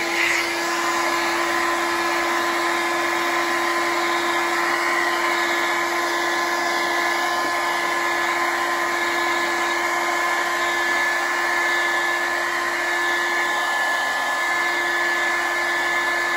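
Handheld hair dryer running steadily at full power, blowing hot air onto a refrigerator's compressor. A rush of air with a constant motor whine.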